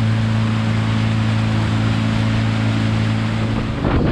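Motorboat engine running at a steady cruising speed, with a constant low drone over the rush of the wake and the wind. Shortly before the end the drone stops and gusty wind noise takes over.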